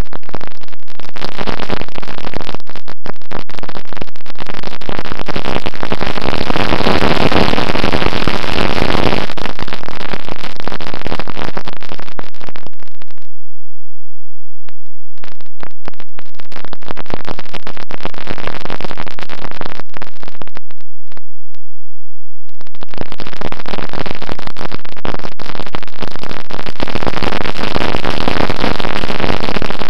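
Distorted rush of wind and propeller noise on the onboard camera of a Bixler electric model plane in flight. It is loud and overdriven, drops away almost completely about 13 seconds in, returns thin and broken, and comes back at full strength a little after 22 seconds.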